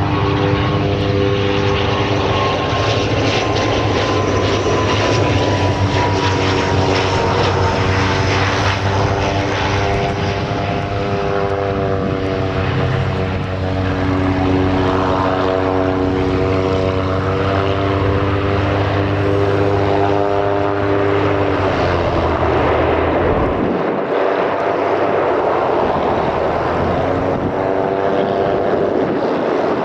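ATR 72-600 turboprop landing, its propellers giving a steady multi-tone drone with a falling whine as it passes low on approach. The propeller tones shift in pitch as it rolls out on the runway.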